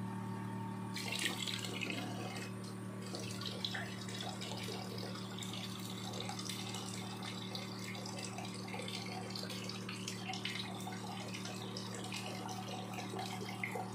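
Water running and trickling from a reverse-osmosis water machine's small drinking-water tap into a plastic cup, with a steady low hum underneath.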